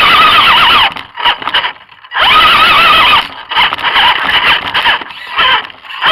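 Electric motor and gears of an RC rock crawler whining, the pitch wavering with the throttle. It cuts out about a second in, comes back after a short gap, then goes on and off in short spurts.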